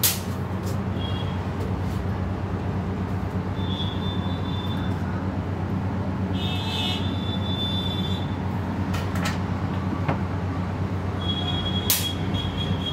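Steady low mechanical hum of a motor, with a few sharp clicks and brief high squeaks over it, as a knife cuts raw chicken on a plastic cutting board.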